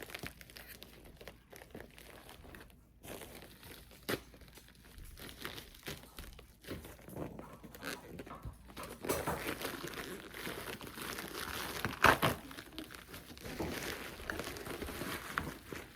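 Packaging being opened by hand: on-and-off crinkling and rustling with scattered clicks, busier in the second half, with one louder sharp crackle about twelve seconds in.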